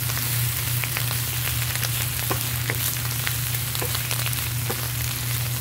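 Wild spinach and sliced garlic sizzling in olive oil in a nonstick frying pan as a spatula turns it, with many small crackles and pops over a steady low hum.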